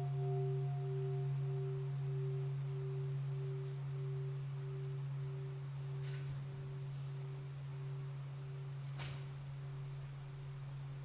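Bell of mindfulness ringing on after being struck, its sound slowly dying away. It holds a low steady hum and a higher tone that pulses a little under twice a second; its highest overtone fades out about two seconds in.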